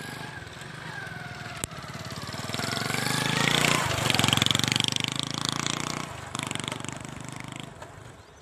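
Small motorcycle engine running as the bike rides past close by: it grows louder as it approaches, is loudest about four seconds in, then fades as it rides away.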